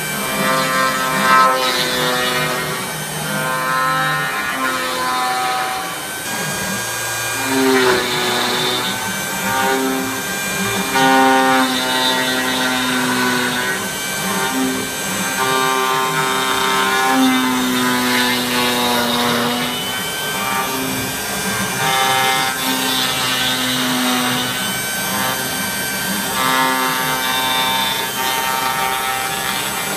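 A song with a singing voice holding long notes, over the steady noise of a Bosch router spindle on a CNC machine cutting into wood.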